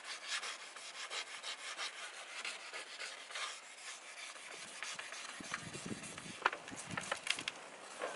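2500-grit sandpaper on a sponge pad rubbed back and forth by hand over a plastic taillight lens: a quick run of quiet, scratchy strokes, with a few sharper scrapes near the end. This is the fine-grit stage that smooths the faded lens.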